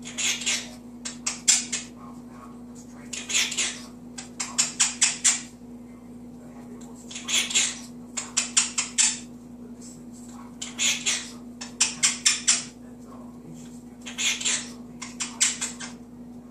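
Pet parrot making the same sound sequence over and over: a short hissing burst, then a quick run of five or six smacking clicks, repeated about every three to four seconds.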